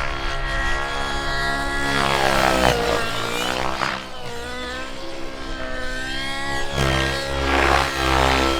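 OS 91 Speed nitro engine with an Absolute CNC tuned pipe running hard on a flying radio-controlled model helicopter. It makes a steady high-pitched whine that sweeps down and back up twice, once a couple of seconds in and again near the end, as the model manoeuvres.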